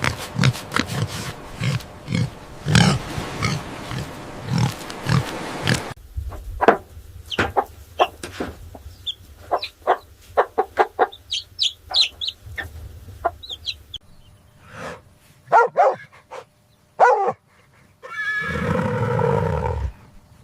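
Farm animal calls from a run of short clips. Quick low grunting calls, evenly spaced, fill the first six seconds. Sharp high chirps and clicks follow, then a few louder calls, and one long pitched call lasting about two seconds near the end.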